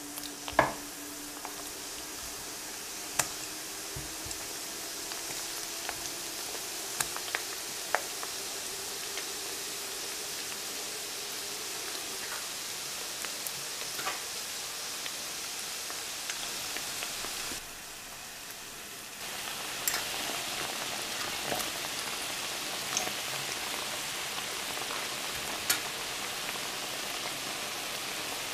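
Mini yeast doughnuts deep-frying in hot oil: a steady sizzle with scattered pops and crackles. The sharpest crack comes about half a second in, as a piece of dough is lowered into the oil. The sizzle drops away briefly past the middle and comes back louder.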